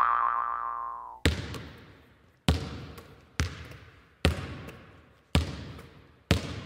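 A pitched electronic tone fades out over the first second. Then comes a basketball bouncing on a hard court: six echoing bounces, about a second apart.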